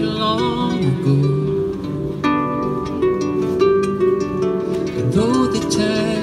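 A harp played live: plucked notes ringing on, with a fuller chord struck about two seconds in. A man's voice sings gliding phrases over it near the start and again near the end.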